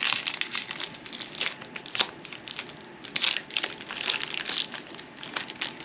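Crinkling and rustling as a foil Pokémon booster pack and its cards are handled: irregular crackles, some louder near the start and about three seconds in.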